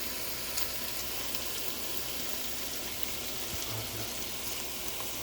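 Ground turkey and onions frying in olive oil in a pan: a steady sizzle with a few faint crackles.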